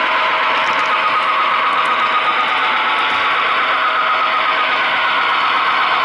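Model train's running gear heard from a camera riding on the train: a steady whine with several tones, from the motor and gears, over the rolling noise of wheels on rail.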